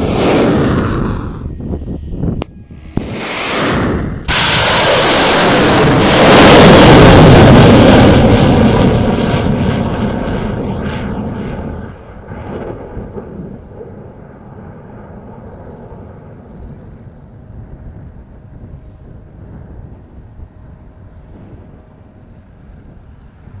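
Air defence missiles launching. The first few seconds hold short bursts of rocket-motor noise that cut off abruptly. About four seconds in a loud launch starts suddenly, builds, and fades slowly over several seconds. From about twelve seconds a fainter steady rushing continues.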